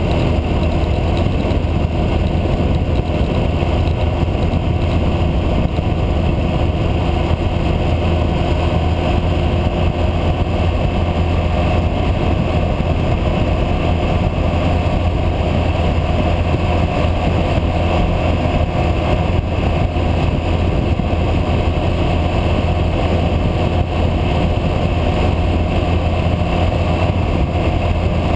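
Motorcycle engine running at a steady cruise, with wind rushing over the onboard microphone.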